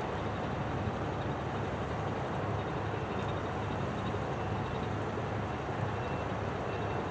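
Steady low rumble of a container ship's engine with a slow, even throb, over a constant wash of noise.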